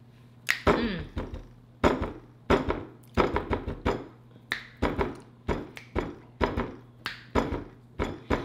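Steady rhythmic knocking, a sharp hit roughly every two-thirds of a second like a slow beat, some hits carrying a short voice-like tail.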